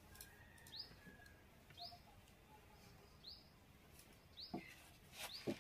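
A small bird chirping faintly and repeatedly, short rising chirps about once a second, with a couple of soft knocks near the end.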